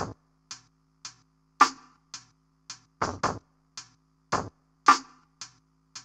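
Sparse electronic percussion beat: short, dry hits about twice a second, some accented louder than others, over a faint low steady tone.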